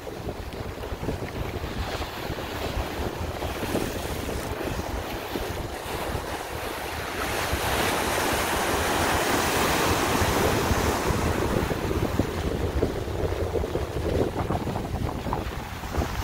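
Ocean surf breaking and washing up on the shore, with wind buffeting the microphone. The surf swells louder for a few seconds in the middle, then eases off.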